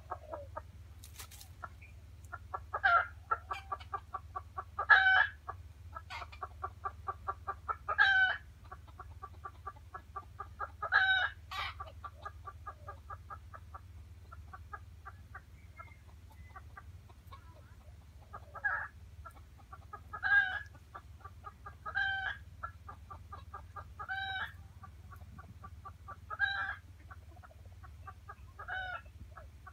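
Junglefowl hen clucking: long runs of quick clucks broken by a louder call every two to three seconds, with a quieter stretch in the middle.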